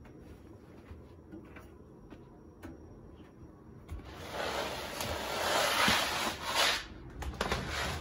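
Damp laundry being pulled out of a front-loading washing machine drum and handled: a few light knocks and clicks, then about three seconds of loud fabric rustling, with a couple more knocks near the end.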